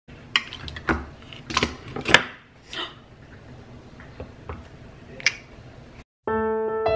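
Handheld crank can opener being worked on a can of corn: a run of sharp clicks and clacks, the loudest about two seconds in, then a few sparser clicks. It cuts off just after six seconds and piano music begins.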